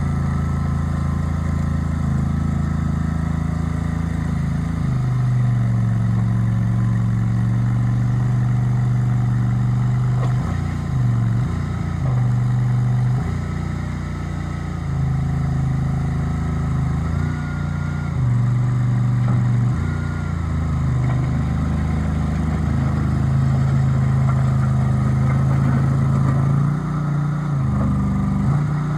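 Bozer 427 skid steer loader's engine running steadily, its pitch shifting and dipping several times as engine speed and load change.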